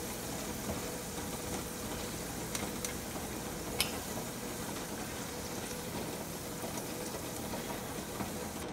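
Cashews and raisins deep-frying in hot vegetable oil, a steady sizzle, now fried through and being lifted out. A few light clicks of a wire mesh skimmer against the pan.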